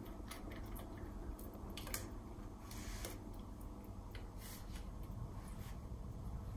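Faint, irregular scrapes and soft squelches of a silicone spatula working thick cake batter out of a stainless-steel kitchen-machine mixing bowl into a cake tin.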